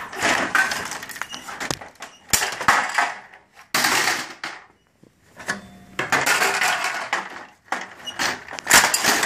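Plastic and sheet-metal panels of a Savin 9113 copy machine clattering, scraping and knocking as its covers are pulled apart and lifted off, in several separate bursts with a few sharp knocks.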